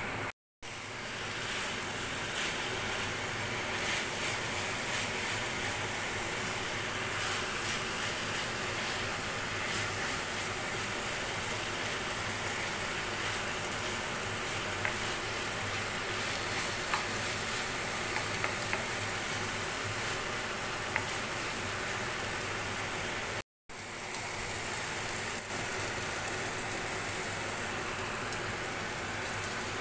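Minced meat, onion and tomato frying in a pan: a steady sizzle with a few light clicks. The sound cuts out briefly twice, near the start and about two-thirds of the way through.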